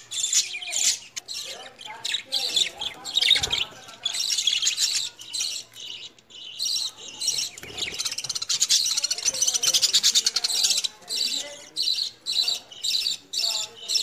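A group of budgerigars chirping and chattering in fast, continuous bursts of high-pitched tweets and squawks, with lower warbling notes mixed in.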